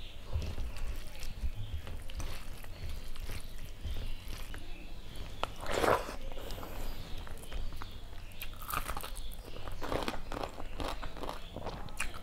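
Fingers mixing and squishing boiled rice with dal on a steel plate, heard close up on a lapel microphone, with scattered small clicks and soft mouth sounds. A brief louder sound comes about halfway through, and a mouthful is taken near the end.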